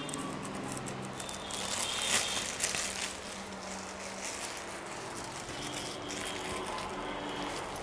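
A clear plastic bag crinkling as it is handled in the hand, with the sharpest crackles about two to three seconds in.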